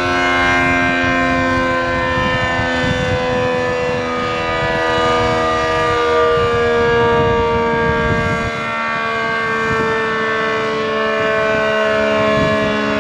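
ACA Screamer S-10 outdoor warning siren sounding a sustained chord of several tones at once, its pitch drifting slowly lower and back. The siren is in poor condition: its top lid holes are broken out, which starves the rotor of air, and its motor is reverse-wired so the rotor spins the wrong way. This leaves it fairly weak for a Screamer.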